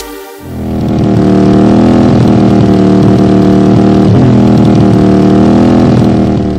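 Motorcycle engine running loud and steady. It comes up within the first second and its pitch dips briefly a few times.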